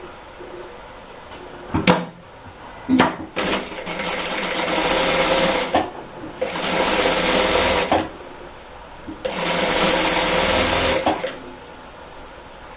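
Sewing machine stitching lace onto a cotton patchwork strip in three runs of about two seconds each, stopping briefly between runs. Two sharp clicks come first, about two and three seconds in.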